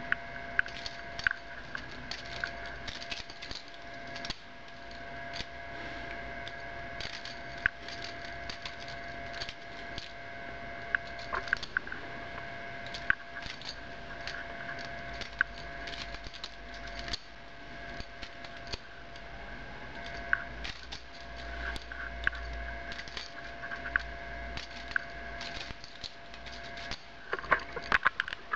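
Balisong (butterfly knife) being flipped: irregular metallic clicks and clacks as the handles swing and strike the blade, over a steady faint hum.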